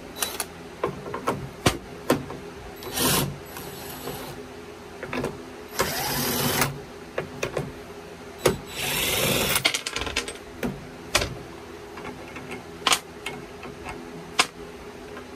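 Cordless DeWalt power driver spinning nuts off the studs of a truck strut's top mount, in three short runs about three seconds apart. Between the runs are clicks and clinks of metal parts being handled.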